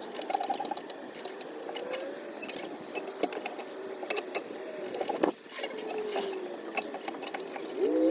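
Rapid mechanical clicking and clatter, densest in the first second, with scattered clicks after that.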